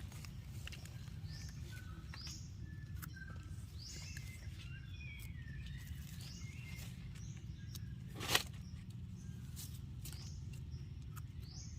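Wild birds chirping in woodland: many short high chirps with a few falling whistled notes. A single brief rustle or snap about eight seconds in.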